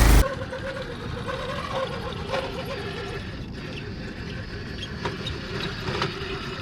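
A loud intro effect cuts off just after the start. Then an RC rock crawler's brushless motor and geared transmission run with a steady whine, with occasional clicks and knocks from the rig.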